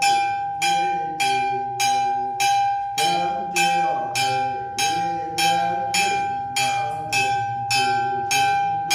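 A small ritual bell struck in a steady beat, a little under two strokes a second, each ring carrying on into the next, with a voice chanting under it.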